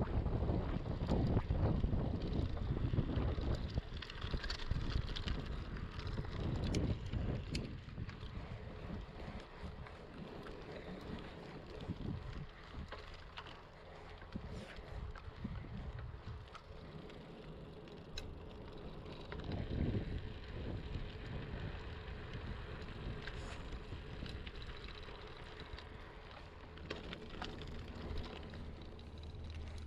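Bicycle ride heard through a moving camera's microphone: wind buffeting the microphone with an uneven low rumble, loudest in the first few seconds, under tyre noise and scattered small clicks and rattles.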